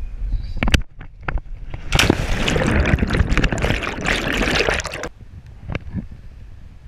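Rope-swing plunge into a river heard from a camera carried by the jumper: wind buffets the microphone during the swing, then about two seconds in the body hits the water and some three seconds of loud churning, bubbling water follow underwater. Near the end the camera surfaces and the sound drops to scattered drips and small splashes.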